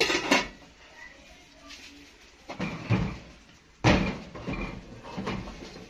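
Aluminium cooking pot and lid knocking against the iron grates of a gas stove as the pot of rice is covered and shifted to another burner to steam: two quick sharp knocks at the start, a louder clunk a little under four seconds in, and lighter handling knocks between.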